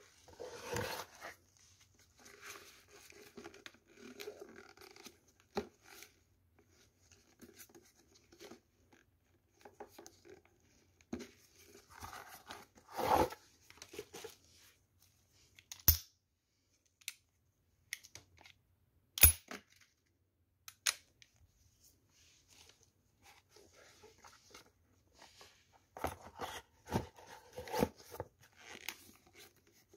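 Gloved hands handling a replica Webley top-break revolver and a stiff leather holster: on-and-off rubbing and rustling, broken by a few sharp clicks from the revolver's action, the loudest a little past halfway.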